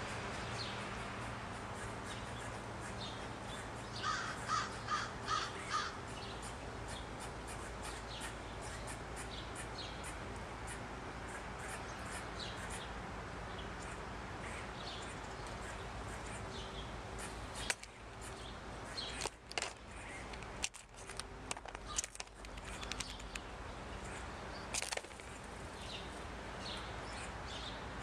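A corvid gives five harsh calls in quick succession. Scattered sharp clicks and knocks follow later, over a steady background hiss.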